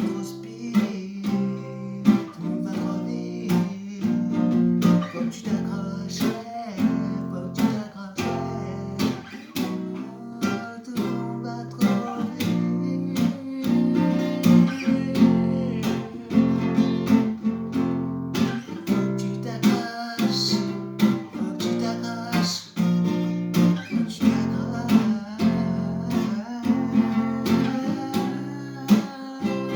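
Acoustic guitar strumming chords in a steady rhythm, perhaps with a faint voice singing along.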